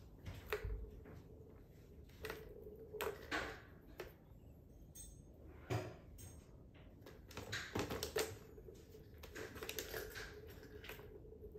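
Scattered light clicks and taps of a plastic ball-track cat toy as a cat paws at it, in small clusters.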